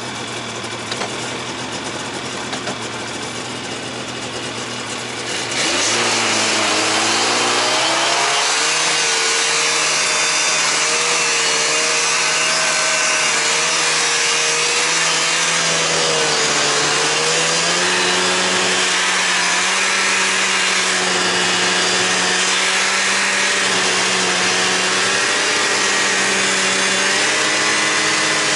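Two-stroke snowmobile engine running low and steady, then opening up about five seconds in as the sled pulls away and runs under load, its pitch rising and falling with the throttle.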